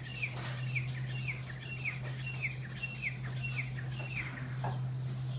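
A small bird chirping over and over, about two short falling chirps a second, stopping about four seconds in, with a steady low hum underneath.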